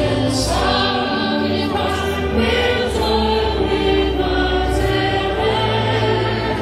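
A choir singing long held chords over a steady bass accompaniment.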